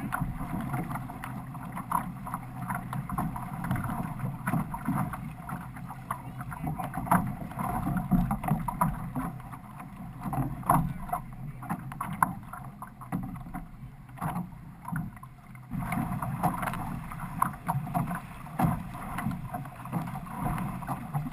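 Water splashing and gurgling along an outrigger canoe's hull and outrigger float, with repeated splashes of paddle strokes. It is quieter for a few seconds past the middle, then picks up again.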